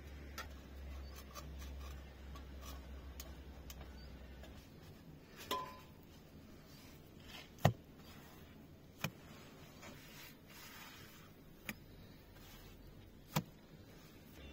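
Scattered light knocks and taps, about six in all, the loudest about halfway through, over a low hum that stops about a third of the way in.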